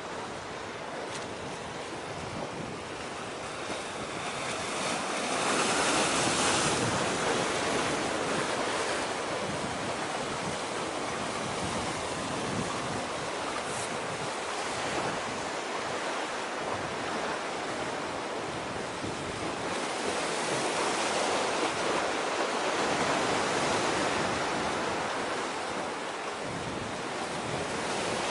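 Sea waves washing in, the rushing swelling and easing every several seconds, with wind on the microphone.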